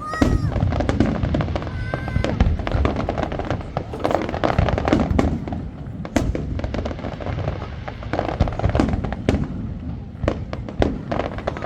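Fireworks display: a dense run of bangs and crackling over a continuous low rumble of shell bursts, with short whistling tones near the start and again about two seconds in.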